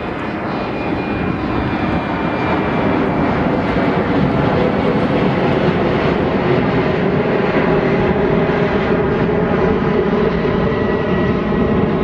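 A steady engine drone with a faint high whine in it, growing louder over the first few seconds and then holding level.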